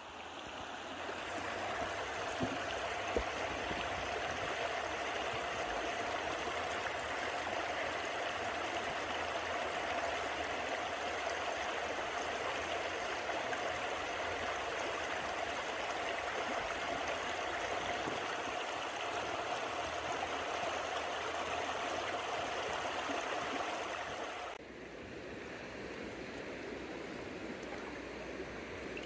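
Shallow mountain trout stream running over rocks in a riffle: a steady rushing of water. About 24 seconds in it drops suddenly to a softer, quieter flow.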